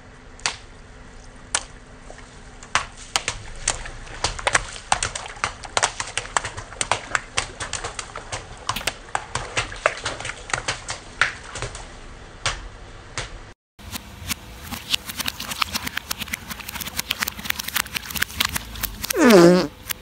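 Car tyre rolling slowly over a row of small water balloons, which burst in a quick, irregular run of sharp pops and crackles, with a short break about two-thirds through. Near the end comes one loud squeal that falls steeply in pitch.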